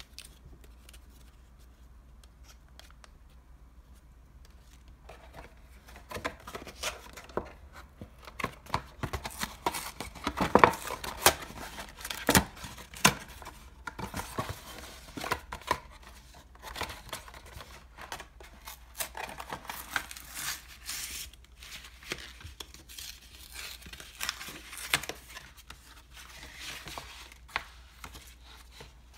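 Thin paperboard carton pried open at its glued seams and unfolded flat by hand: the card tears, crackles and rustles. The noise starts about five seconds in, with the sharpest cracks near the middle.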